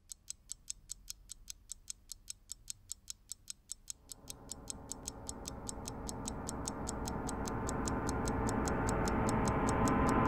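Fast, even clock-like ticking, about four ticks a second. From about four seconds in, sustained music fades in under the ticks and grows steadily louder.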